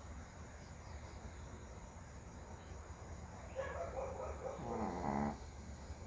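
A sleeping dog snoring: one loud snore starting a little past halfway and lasting about two seconds, over a steady high chirring of insects.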